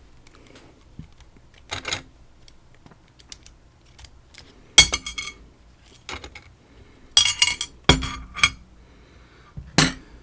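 Small metal tools and padlock parts clinking and rattling in four short bursts of sharp clicks with a bright metallic ring, the loudest cluster about two thirds of the way through.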